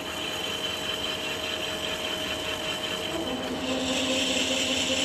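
Ajax AJCBM800 CNC bed milling machine running a program: a steady machine whine with several held tones from the spindle and axis drives. Its tone changes and it grows slightly louder about three and a half seconds in.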